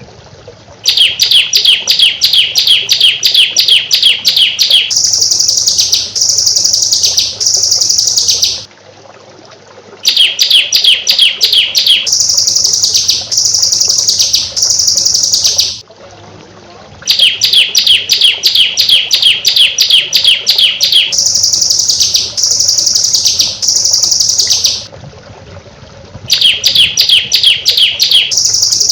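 Songbird training recording: a rapid-fire burst of sharp high notes, the 'tembakan rapat' close shots, for about four seconds, then three downslurred whistles. The phrase repeats about every eight seconds, four times over.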